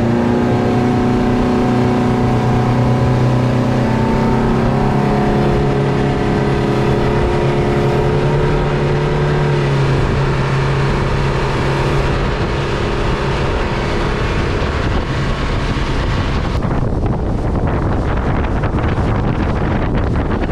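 Yamaha 115 four-stroke outboard running at speed under way, a steady engine drone over the rush of the wake and spray. Near the end the engine tone fades under wind noise and the hiss of water off the hull.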